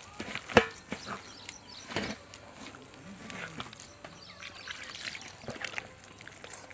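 A bare hand squishing and kneading a wet paste of flour and spices in a steel plate: irregular wet squelches and slaps, the sharpest about half a second in.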